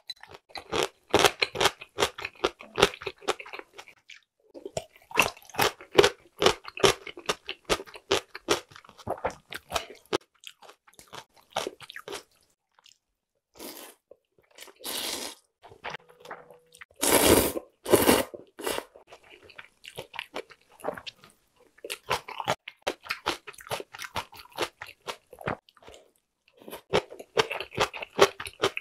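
A person eating thin wheat noodles in broth: steady wet chewing and crunching in runs, with a few louder slurps of noodles in the middle.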